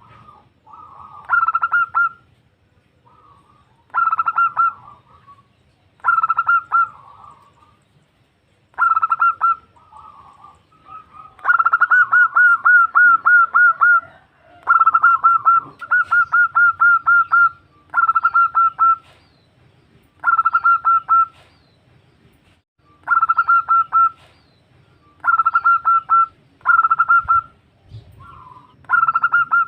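A female zebra dove (perkutut) calls to a male. It gives short phrases of rapid, clipped cooing notes, about every two seconds, and strings two longer runs of notes together about halfway through.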